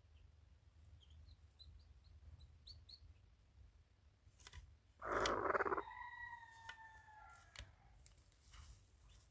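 A rooster crowing once, about five seconds in: a loud harsh start running into a long held note that falls slightly in pitch. Faint, short, high chirps come before it.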